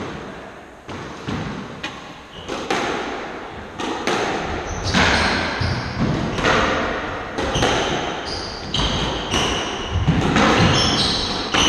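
Squash rally: the ball cracking off rackets and the court walls about once a second, each hit echoing in the court, with high shoe squeaks on the wooden floor in the last few seconds.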